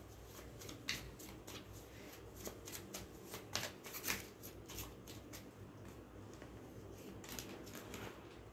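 A deck of tarot cards being shuffled by hand: faint, irregular soft clicks and flicks of the cards slipping against each other, a few slightly sharper ones along the way.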